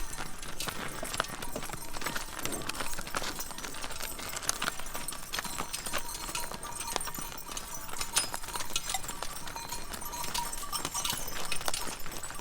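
Large cow bells clanging irregularly as the herd moves along, a dense stream of overlapping metallic strikes with a ringing tone through them.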